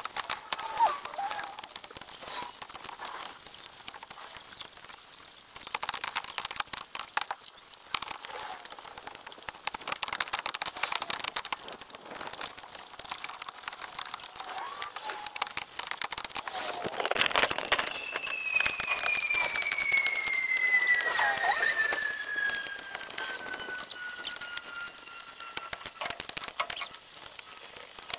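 Firewood being handled and stacked, heard at 20 times speed: a dense chatter of rapid clicks, knocks and crackles. A long tone slides slowly down in pitch from about two-thirds of the way through.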